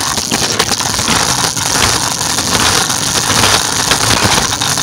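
Scooter rolling fast over a concrete sidewalk: a loud, steady, rough rattling noise full of small clicks and knocks from the ride.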